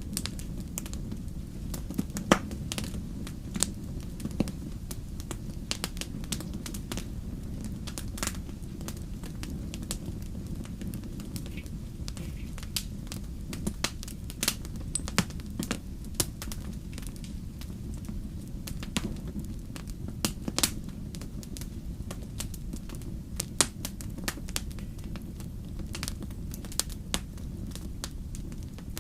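Wood campfire burning: sharp, irregular crackles and pops over a steady low rumble of the flames.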